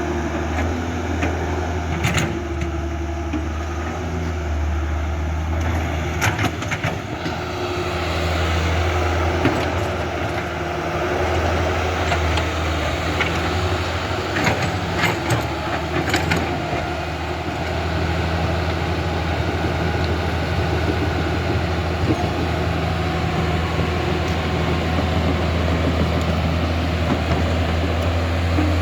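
Excavator with a log grapple working, its machinery giving a steady low hum under shifting tones, with several short knocks of wood being handled.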